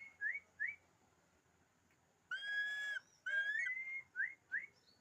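Changeable hawk-eagle (dark morph) calling: shrill rising whistles, each long upslurred note followed by two short quick upslurs, twice, with a louder, harsher drawn-out scream about two seconds in.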